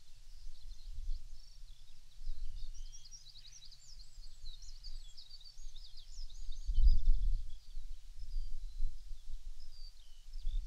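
Dawn chorus of songbirds, many rapid high chirps and trills overlapping, busiest in the middle. A low rumble of wind on the microphone gusts up about two-thirds of the way through.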